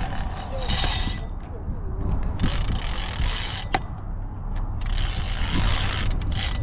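Fishing reel whirring in three bursts of a second or so each, with pauses between, while a large hooked fish is being played, over a low rumble of wind on the microphone.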